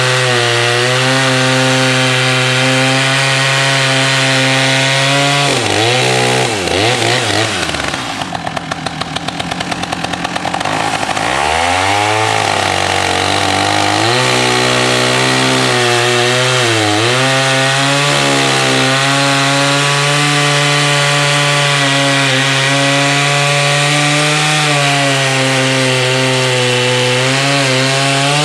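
Sachs Dolmar 166 two-stroke chainsaw cutting through a thick log under load, on a freshly rebuilt top end. The engine holds a steady pitch through the cut, sagging and recovering a few times, most deeply about a third of the way through.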